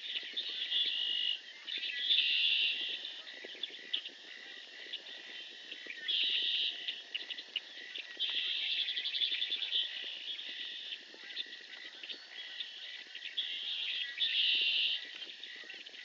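Chorus of marsh animals calling: high, buzzy trills coming in bursts of about a second, several times, over a steady high tone.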